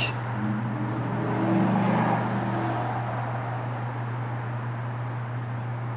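Steady low hum over background noise, swelling briefly around two seconds in, with no clear sound from the work itself.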